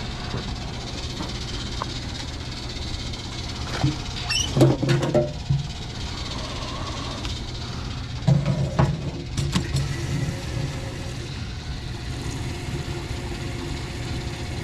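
The 1984 Trabant 601S's air-cooled two-stroke two-cylinder engine running with a steady low hum. Two short spells of louder knocks and rattles come about four and eight seconds in.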